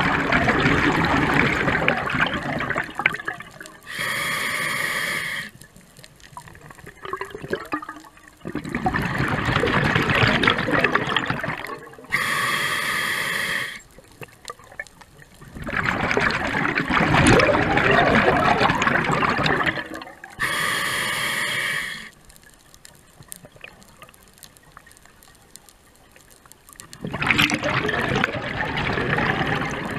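Scuba diver breathing through an open-circuit regulator: a short, steady hiss from the demand valve on each inhale, then a longer bubbling exhale, in a slow cycle of about one breath every eight seconds with a few quiet seconds between some breaths.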